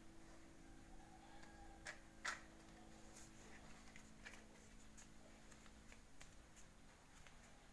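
Near silence with a few faint clicks and knocks of large plastic building blocks being handled, the two sharpest about two seconds in, over a low steady hum that fades out about six seconds in.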